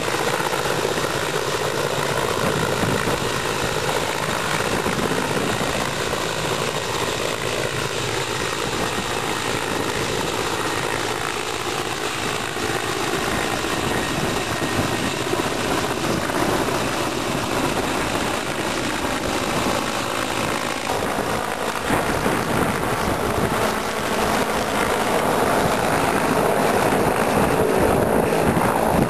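A helicopter's engine and rotor running steadily.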